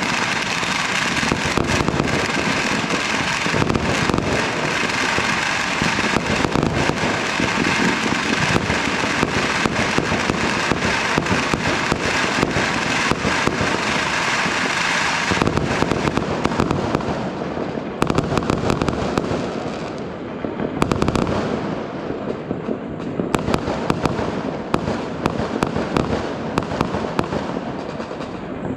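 Fireworks going off in a dense barrage, bangs and crackles merging into a continuous din. From about 15 seconds in it thins out into separate bangs and crackling.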